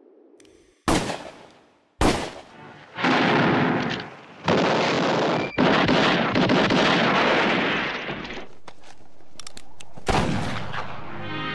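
Gunfire from a western film's soundtrack: two single gunshots about a second apart, then several seconds of dense, rapid firing, and one more shot near the end as music comes in.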